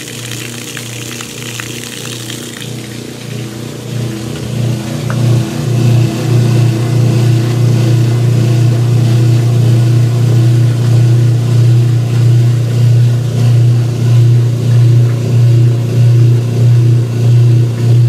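Kenmore 80 Series direct-drive washing machine draining: its motor and drain pump hum steadily while water splashes out of the drain hose at first. About four seconds in the low hum gets much louder and pulses evenly.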